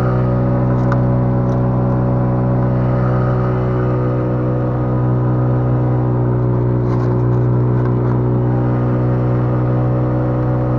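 A loud, steady low-pitched drone that holds one pitch throughout, with a few faint clicks about a second in and again around seven seconds.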